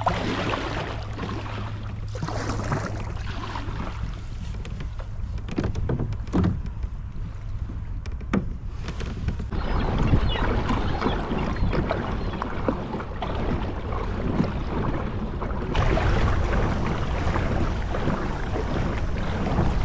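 Water rushing and splashing along an Old Town kayak's hull as it moves through calm sea water, with some wind on the microphone. A couple of short knocks come a few seconds in.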